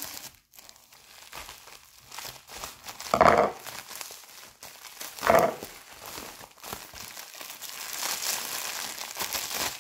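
Plastic bubble wrap being cut and pulled open by hand, crinkling and crackling, with two louder bursts about three and five seconds in.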